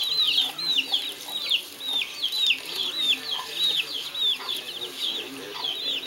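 Chickens calling: a steady stream of short, high peeps, each falling in pitch, several a second, over fainter low clucks.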